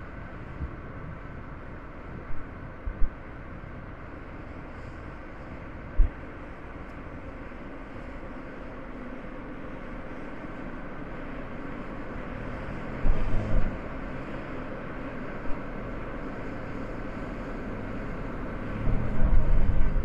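Car driving on a road: steady road and engine noise, with brief low thumps now and then and a longer run of them near the end.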